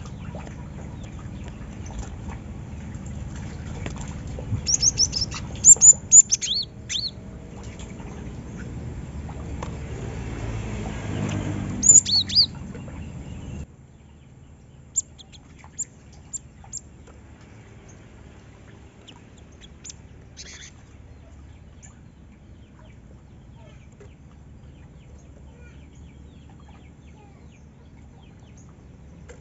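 Cinereous tit (gelatik batu) giving short, high chirping calls, in clusters about five, six and twelve seconds in, then only occasional faint chirps. A low rumble runs underneath and stops abruptly about fourteen seconds in.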